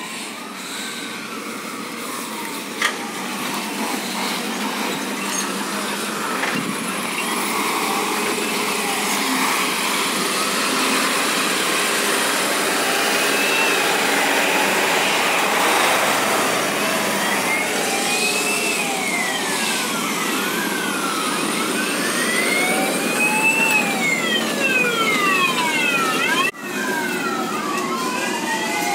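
Fire-engine sirens wailing as a convoy of fire trucks drives past, each siren rising and falling in pitch. Over the later part more sirens overlap, some sweeping faster, over the running truck engines and road noise.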